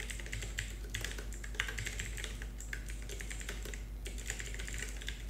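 Typing on a computer keyboard: a quick, uneven run of keystroke clicks.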